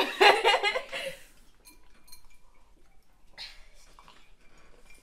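A person cries out loudly with a wavering pitch for about a second, then a shorter, softer cry about three and a half seconds in: a pained reaction to the burn of ultra-spicy chicken wings.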